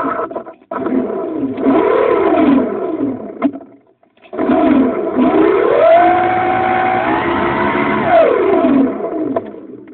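RC model airplane motor running under changing throttle in two loud runs, with a brief cut about four seconds in. Its pitch rises and falls, then climbs, holds high and drops away near the end.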